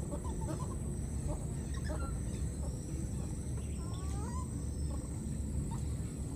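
Outdoor animal sounds: scattered short, pitched clucks and chirps, with a pair of longer sliding calls about four seconds in, over a steady low rumble and a thin high steady whine.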